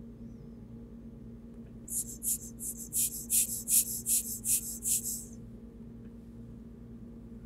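A quick run of about ten short, high, scratchy hissing strokes, roughly three a second, over a steady low electrical hum from the bench equipment.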